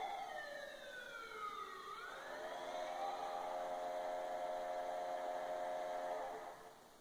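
NHL arena goal horn, a large air horn blasting: one note slides down over the first two seconds as another sweeps up, then a steady multi-note chord holds until it cuts off about six and a half seconds in.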